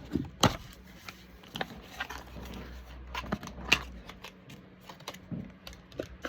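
A product box and its packaging being opened and handled by hand: scattered sharp clicks and taps, with light rustling between them. The loudest clicks come about half a second in and just before the four-second mark.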